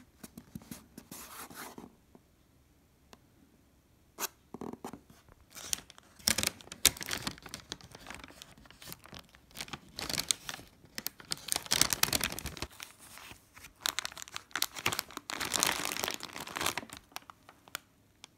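Thin plastic bag crinkling and rustling in irregular bursts as hands rummage in it and pack it into a paper bag.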